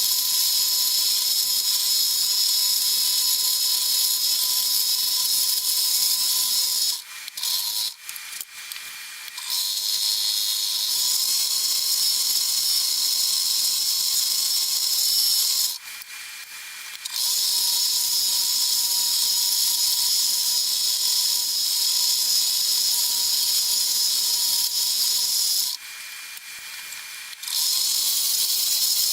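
Scroll saw running steadily as it cuts, a high hiss with a thin steady whine, stopping briefly three times.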